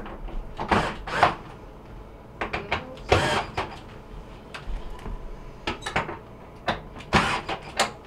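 Irregular clicks, knocks and brief scraping of metal hardware as a French-door refrigerator's freezer drawer door is handled and its mounting screws are tightened with a screwdriver.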